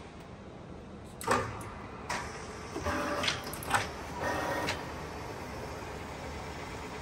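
Clicks and clunks of the feed controls being worked on a Correa F2UE universal milling machine, with a brief mechanical whirr, then the machine running steadily as the knee moves in vertical feed.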